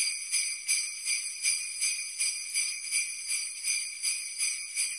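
Sleigh bells jingling in a steady rhythm, about two to three shakes a second, bright and high.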